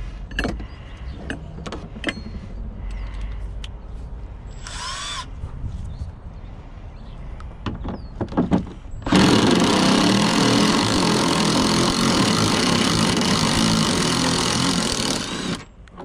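A cordless drill running without a break for about six seconds, starting suddenly about nine seconds in and cutting off sharply. Before it come a short burst of sound with a changing pitch about five seconds in and scattered clicks and knocks of parts being handled.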